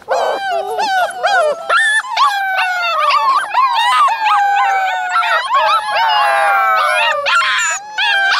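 A litter of Alaskan malamute puppies howling together: many high voices overlap, gliding and wavering in pitch, with some long falling howls in the middle.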